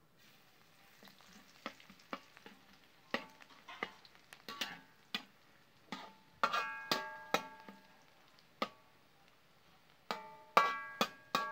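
Metal spatula knocking and scraping against a thin metal wok, the pan ringing after the harder strikes, over a faint sizzle of chopped garlic frying in oil. The knocks grow louder about halfway through, and the loudest comes near the end.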